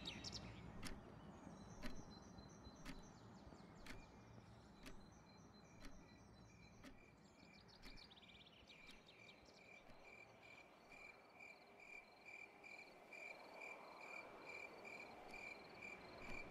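Faint night ambience: a soft tick about once a second, like a clock, with crickets chirping in a steady pulsing trill that comes in about seven seconds in.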